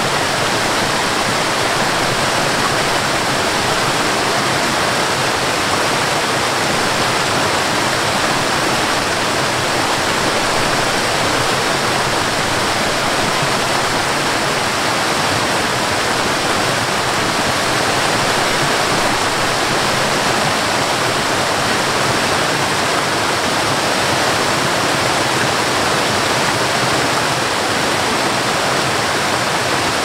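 Waterfall cascading over rock ledges: a steady, unbroken rush of pouring and splashing water.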